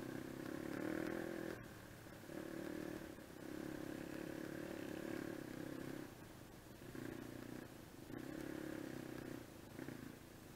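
Dirt bike engine running under throttle, pulling in surges of one to four seconds with the revs dropping back in between. It settles to a lower, steadier note near the end.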